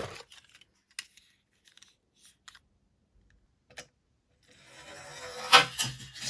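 A toy minicar being handled: a sharp click, then a few small clicks and taps. About four and a half seconds in, a scraping, rubbing sound builds to a loud peak near the end.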